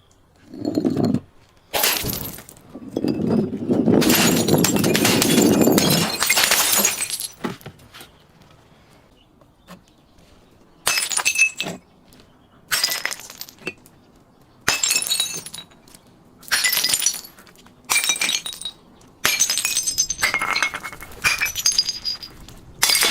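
Glass bottles breaking and shattering. There is a long crash lasting a few seconds early on, then after a quiet pause a run of about eight short separate smashes with tinkling shards, one every second or two.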